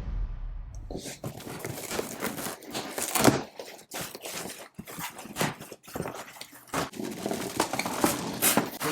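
The tail of a whoosh sound effect fades out in the first second. Then comes a run of irregular knocks, clicks and crinkling rustles of a cardboard box and plastic packaging being handled.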